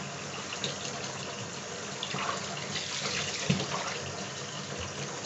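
Bath tap running steadily into a partly filled bathtub, with a few light splashes of a hand moving in the water.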